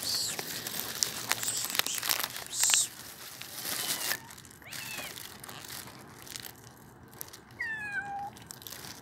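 Plastic bag crinkling and rustling for the first three seconds, then a three-month-old kitten meowing: a faint mew about five seconds in and one clear, falling meow near the end.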